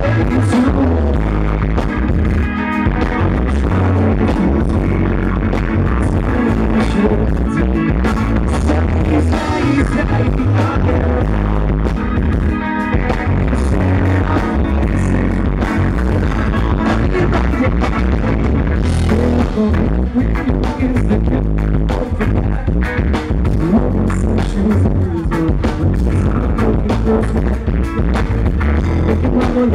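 A live rock band playing loudly through a stage PA: electric guitars, bass, keyboard and drums, with a lead singer at the microphone. The heavy bass and drums run on without a break.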